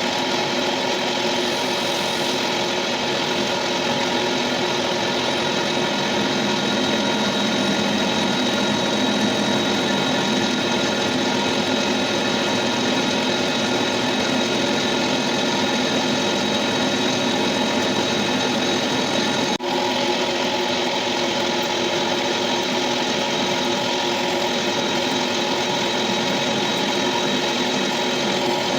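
Metal lathe running steadily, with a constant machine whine of several tones over a hiss, broken by a brief dropout about twenty seconds in.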